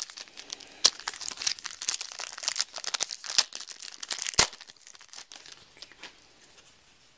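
Foil trading-card pack torn open and crumpled by hand: dense crinkling and crackling with a few sharp snaps, dying away after about five seconds.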